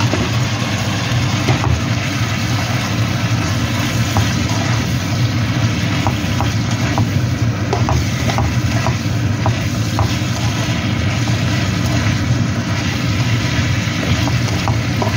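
Green beans and minced pork sizzling in a wok while being stirred with a spatula, with a few light spatula ticks. A steady low hum runs under the frying throughout.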